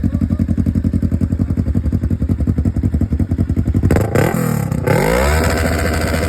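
Motorcycle engine idling with an even, rapid pulse, then revved hard several times from about four seconds in, the pitch sweeping up and falling back with each blip of the throttle.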